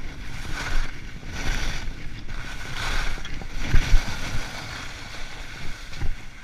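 Skis scraping and hissing over firm, packed snow through a run of quick turns, swelling about once every three-quarters of a second, with a low rumble of wind on the microphone.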